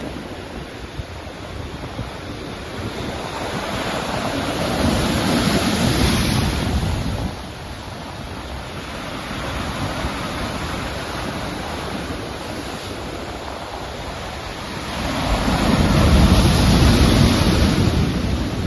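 Sea waves washing onto the shore, with two bigger surges swelling up and breaking, one about five seconds in that drops away suddenly and another near the end.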